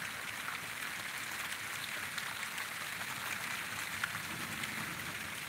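Steady heavy rain falling on trees and the ground, an even hiss with scattered sharp drop ticks, from a thunderstorm.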